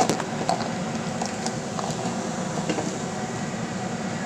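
A sharp knock of cookware at the very start, then a steady kitchen hum and hiss with a few faint light taps.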